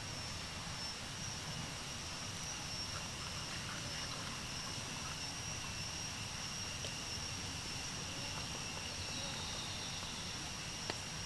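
Steady forest ambience: a continuous high-pitched insect drone over low background noise, with one sharp tap near the end.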